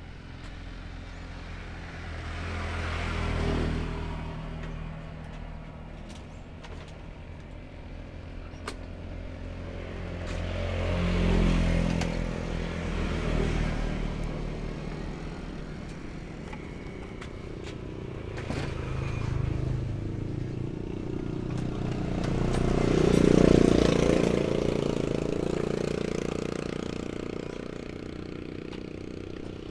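Motor vehicles passing one after another on a road, each swelling and fading as it goes by: one about three seconds in, another around eleven seconds, and the loudest just past twenty-three seconds. A steady low rumble runs underneath, with a few sharp clicks in between.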